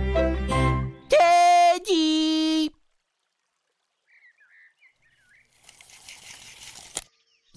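Cartoon soundtrack: string music ends, then two loud held buzzy tones, a higher one and then a lower one, each under a second. After a short silence come faint high chirps and a soft hiss that ends in a click.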